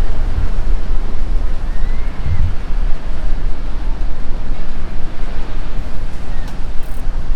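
Ocean surf washing in, with wind buffeting the microphone as a heavy, steady low rumble.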